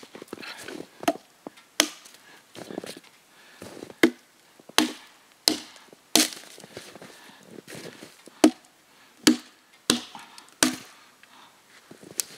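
Axe chopping into a small felled log: about a dozen sharp strikes at an uneven pace, with short pauses between groups of blows.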